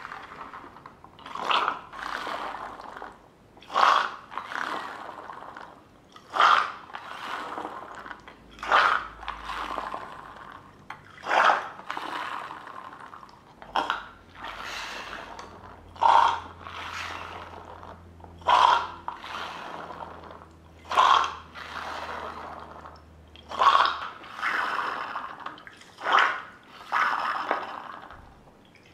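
Homemade jar-and-balloon pump with a marble valve, worked by hand: water and air gurgle and spurt through the straw in a short burst with each stroke, about one every two and a half seconds.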